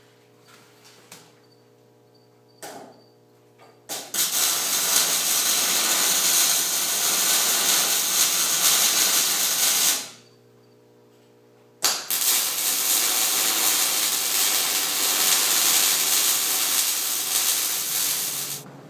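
MIG welding arc hissing and crackling in two runs of about six seconds each, with a break of about two seconds between them. A steady hum and a few clicks come before the first run.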